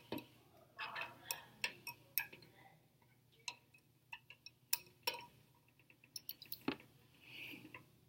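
Glass lab thermometer clinking lightly against the inside of a glass beaker of water: a scatter of faint, irregular clicks and taps.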